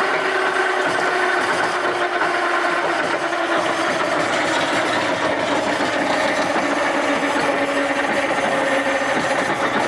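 Sawmill running steadily with a mechanical whine made of several held tones that sink slightly in pitch in the second half.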